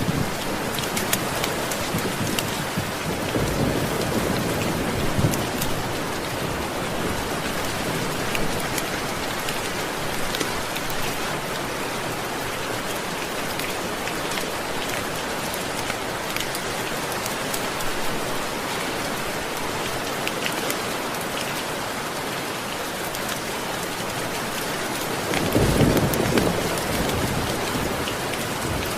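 Steady rain falling, with low rolls of thunder rumbling a few seconds in and again near the end.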